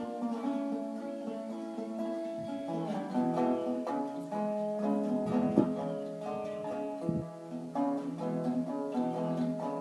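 Tricone resonator guitar played as instrumental music, plucked notes ringing on and changing throughout.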